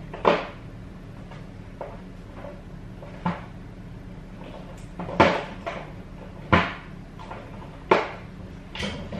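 Kitchen cupboard being rummaged through in a search for a spice jar: a string of knocks and clatters, about five of them sharp, from the door and the things inside being moved.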